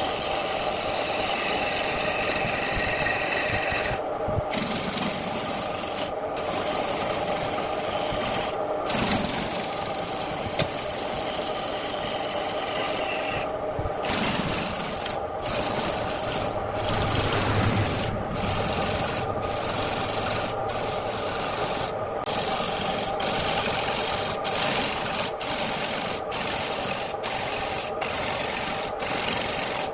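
Wood lathe spinning a wooden blank while a hand-held turning tool cuts it. The cut makes a rough, steady scraping hiss over the hum of the lathe's motor. The scraping breaks off briefly again and again as the tool lifts, more often in the second half.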